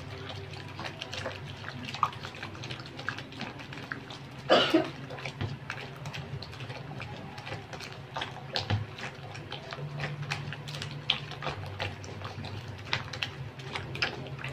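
Hand squeezing and mixing egg, water and melted margarine into flour in a plastic basin: wet squelches and small slaps and clicks. A short cough about four and a half seconds in.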